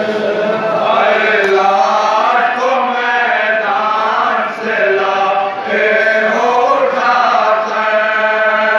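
A group of men chanting a noha, a Shia mourning lament, together in unison, in long drawn-out lines that rise and fall.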